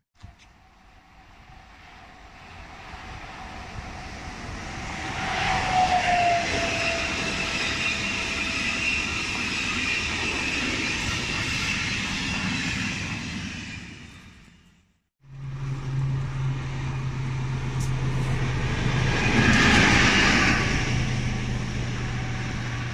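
Siemens ES64U4-C (Taurus) electric locomotive with a ČD railjet passing through: wheel and air rush builds over several seconds and holds, with a high electric whine and a brief falling tone about six seconds in. It cuts off suddenly, and a ČKD T466.2 diesel locomotive follows, its engine a steady low hum that swells louder near the end.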